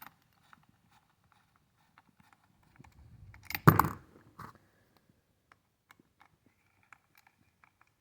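Faint clicks and handling noises of small parts and tools being worked on a chainsaw by hand, with one louder knock or clatter about three and a half seconds in.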